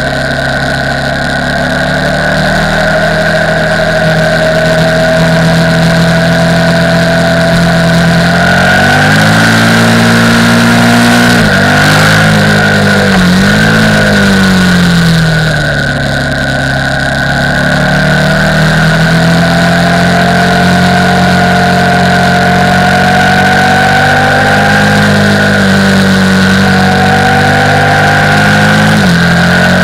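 KTM 990 Supermoto R's LC8 V-twin engine running on the move, its pitch climbing slowly under throttle and dropping sharply several times, with a dip and recovery around the middle. A steady high whine runs under it.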